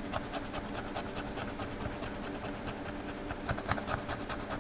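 A pointed pen-like scratcher scraping a scratch-off sticker on a laminated savings card in quick, even strokes, a few louder scrapes about three and a half seconds in.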